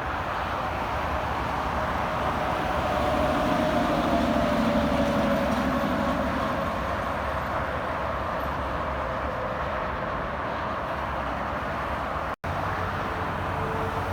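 Highway traffic: steady tyre and engine noise of passing vehicles, swelling as one goes by about four to five seconds in. The sound cuts out for a moment near the end.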